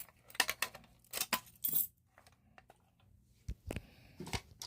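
Sharp clicks and metallic clinks from a fire alarm pull station being handled, followed about three and a half seconds in by a few dull knocks.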